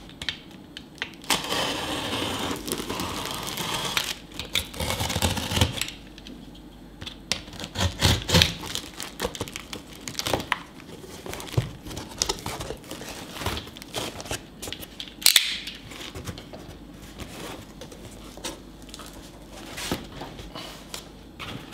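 Utility knife slitting packing tape and plastic on a cardboard box, with tape tearing, plastic crinkling and cardboard flaps being handled as the box is opened. A long continuous rasp in the first few seconds, then scattered crinkles and knocks.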